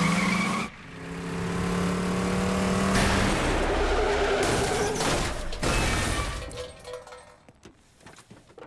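Animated van's engine revving hard with its tires spinning, a steady engine note over a loud rush of noise that builds, then dies away over the last couple of seconds.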